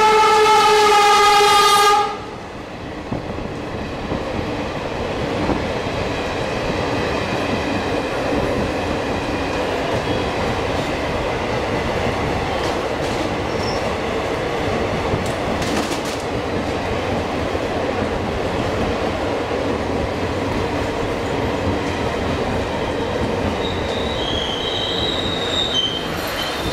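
Horn of a WDG3A ALCO diesel locomotive passing close by, sounding loudly and then cutting off sharply about two seconds in. After it comes the steady rumble and clatter of passenger coaches rolling past at speed in heavy rain, with a few brief high squeaks near the end.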